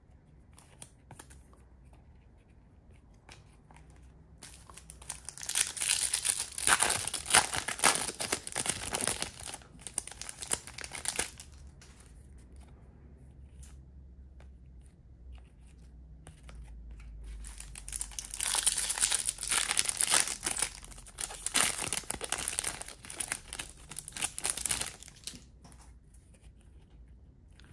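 Bowman University Chrome trading-card pack wrappers being torn open and crinkled, in two long crackling bouts with small handling clicks between them.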